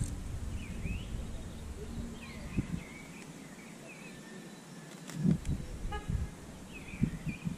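Wind buffeting the microphone in a few low gusts, with faint bird chirps now and then.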